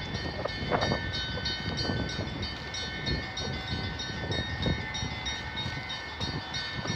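Orthodox church bells ringing, quick repeated strikes over several sustained ringing tones, with a steady low rumble underneath.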